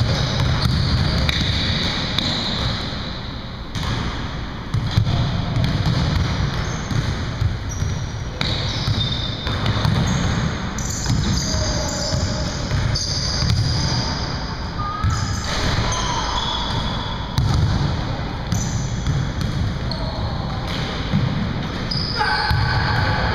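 Basketball being dribbled on a hardwood gym floor during a game: repeated bounces among players' footsteps, with voices calling out.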